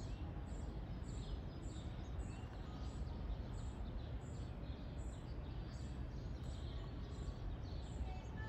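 Songbirds calling in the woods: a high chirp repeating about twice a second with other short falling calls, over a steady low rumble.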